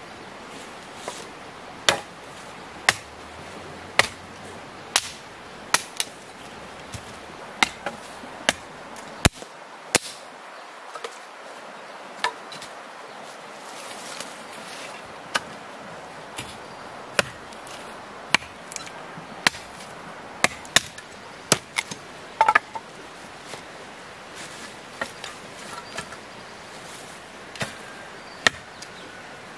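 Machete blade striking a wooden branch in repeated sharp chops, roughly one a second, over a steady background hiss.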